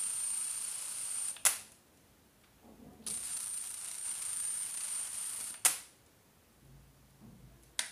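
50 kV high-voltage supply powering a foil-and-wire ionocraft: a steady high-pitched whine over a hiss while it is energised. A sharp snap cuts it off about a second and a half in; it starts again about three seconds in and ends with another snap just before six seconds, and one more sharp click comes near the end.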